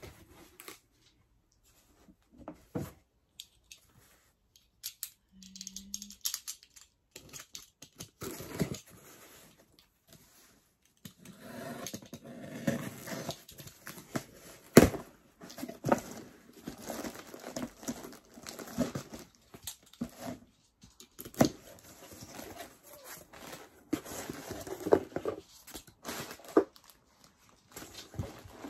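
Cardboard shipping box and paper packing being handled: rustling, crinkling and scraping with scattered knocks, sparse at first and busy through the second half.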